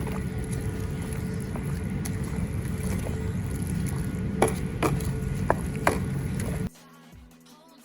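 Steady motor-like whirring and rumbling, as of an electric hand mixer beating eggs and milk, with a few sharp clicks in the second half; it cuts off suddenly near the end, leaving faint background music.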